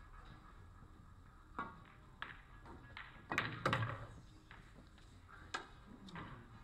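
Pool balls clacking: sharp clicks of a cue tip and balls striking one another. The loudest cluster of clacks comes about three and a half seconds in, with single clicks before and after.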